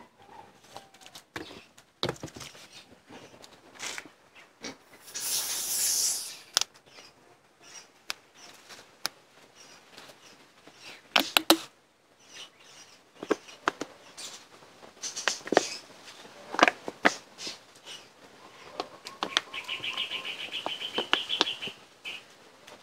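Scattered sharp clicks and knocks, a short hissy rustle about five seconds in, and a bird's rapid chirping trill near the end.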